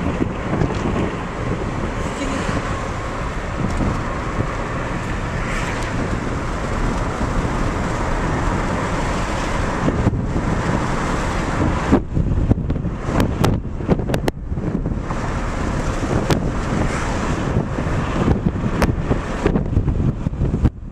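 Wind rushing in through an open rear window of a moving car, over steady road noise. From about twelve seconds in it turns gusty and buffets the microphone in uneven bursts, loud enough to be called "a hurricane".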